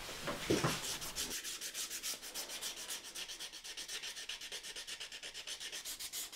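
Hand sanding with sandpaper: quick, even back-and-forth rubbing strokes, about five a second, starting about a second and a half in.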